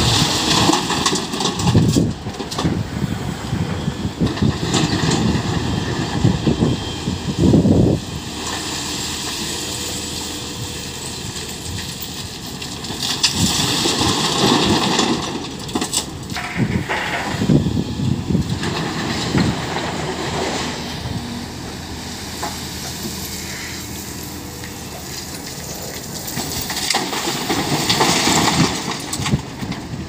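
Caterpillar 320D3 excavator running under load while loading broken rock into a dump truck, with the rock crashing and rumbling into the truck's steel body in several loud bursts over the steady drone of the diesel engine and hydraulics.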